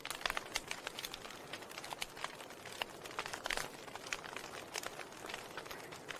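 Wood fire crackling in a fireplace: irregular sharp pops and snaps, several a second, over a soft steady hiss.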